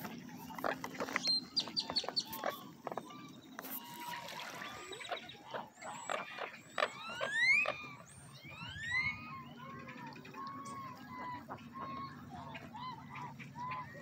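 Water birds calling on a lake: a few rising whistled calls, then a run of short calls repeated about twice a second. A few clicks come near the start.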